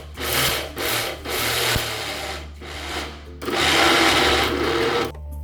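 Electric mixer grinder grinding soaked urad dal into a wet batter, run in several short pulses and then two longer bursts of about a second and a half each, with a coarse rasping sound.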